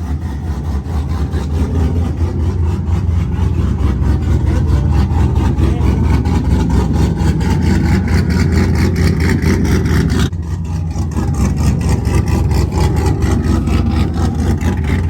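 A car engine running steadily, growing louder over the first few seconds, with a sudden drop in level about ten seconds in.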